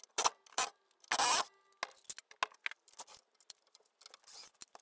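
Cordless screwdriver running in short rasping bursts as it backs screws out of a chair's wooden corner blocks, the longest burst about a second in, with small clicks and scrapes between.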